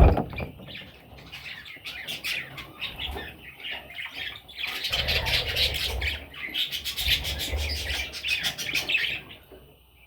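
Pet budgerigars chattering and squawking in rapid, busy strings of calls, densest in the middle and dropping away near the end. A sharp knock at the very start.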